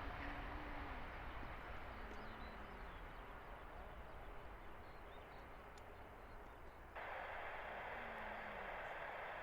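Distant jet airliner fading away, with faint bird calls over it. About seven seconds in, the sound cuts abruptly to a louder steady rushing noise.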